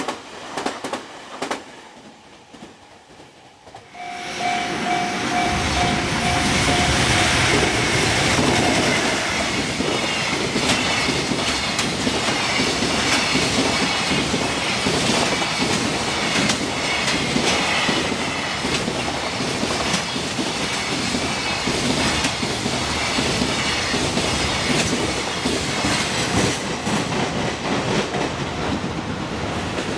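A freight train comes through suddenly about four seconds in, with a ringing tone for a few seconds as it arrives. Its wagons then pass at speed in a loud, continuous clickety-clack of wheels striking the rail joints.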